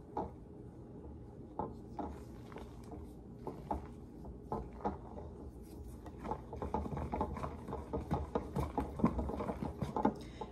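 A spoon stirring thick pumpkin dip in a ribbed glass mixing bowl: soft scrapes and clicks of the spoon against the glass, coming faster and more steadily from about halfway through.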